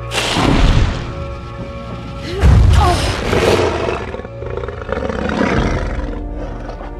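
Large dragon roaring, a film creature sound effect, over an orchestral score. Two loud, deep roars, the first just after the start and the louder about two and a half seconds in, then a weaker one near the end.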